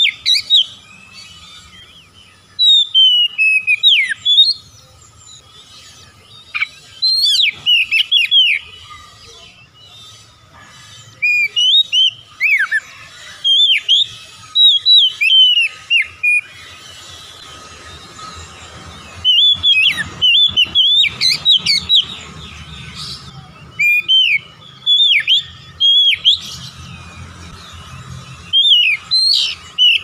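Oriental magpie-robin (kacer) singing: bouts of quick, sliding whistled notes, separated by pauses of a few seconds.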